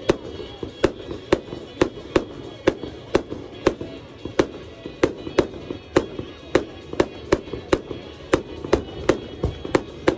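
A firework cake fires fanned comet shots in a rapid, even series, about two to three sharp bangs a second. Music plays underneath.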